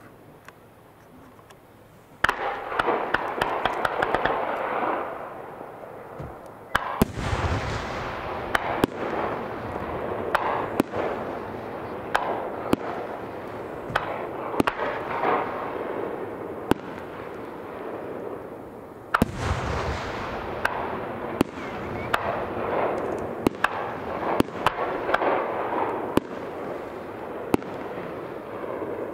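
Aerial fireworks bursting in quick succession: sharp bangs and dense crackling. They start suddenly about two seconds in, with fresh loud volleys about seven and nineteen seconds in.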